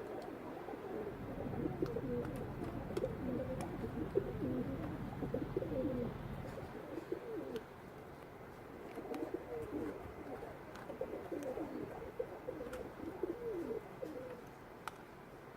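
Pigeons cooing, several low wavering coos overlapping, with a short lull about halfway through. A low steady hum sits under the first half.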